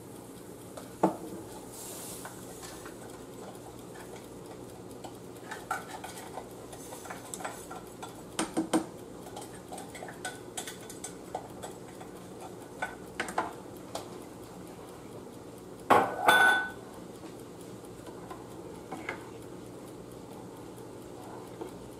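A spoon stirring rice in a saucepan of boiling water, scraping and clinking against the pot in scattered knocks. There is one louder ringing clank a little past the middle.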